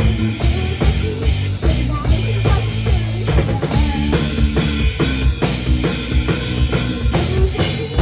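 A live rock band playing an instrumental passage. A Tama drum kit drives a steady beat with kick, snare and rimshots under electric guitars and keyboard, with no singing.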